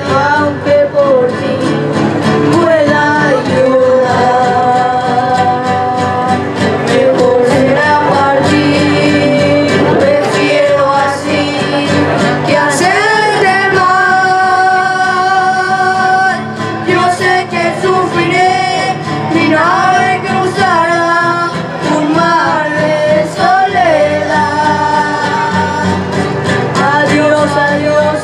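A trio of boys singing a song together into microphones while strumming acoustic guitars, with some long held notes.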